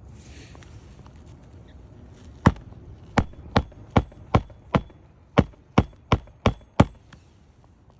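Hammer driving roofing nails through an asphalt shingle into the roof deck: eleven sharp, ringing strikes at about two and a half a second, starting a couple of seconds in and stopping near the end.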